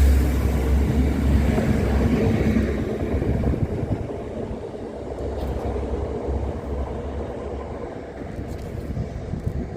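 A train running past, its rumble fading away over several seconds.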